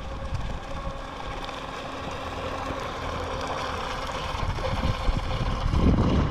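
Faint steady whine of a WLtoys WL915-A brushless RC speedboat's electric motor running out on the water, under wind buffeting the microphone. The wind rumble grows louder near the end.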